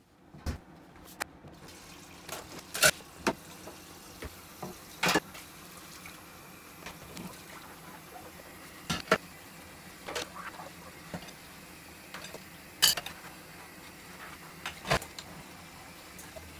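Kitchen tap running steadily into a stainless steel sink while dishes are washed by hand. About ten sharp clinks and knocks of bowls and crockery are scattered through it.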